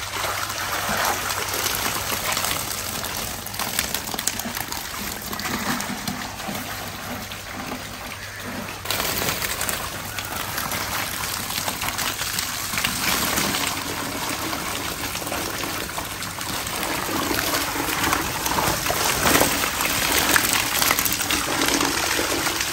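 Water running and splashing, a steady rushing noise with irregular louder splashes, changing abruptly about nine seconds in.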